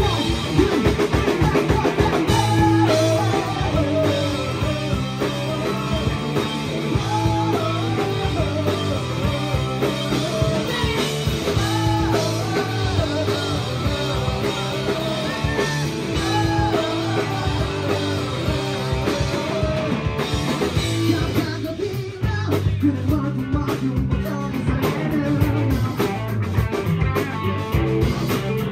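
A live rock band playing: electric guitar, bass guitar and drum kit, with a vocalist singing over them into a handheld microphone.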